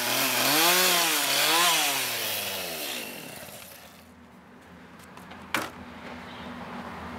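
Stihl chainsaw cutting into a wooden bear carving, the engine revving up and down with each pass. About three seconds in it is let off and winds down, and a sharp knock comes a couple of seconds later.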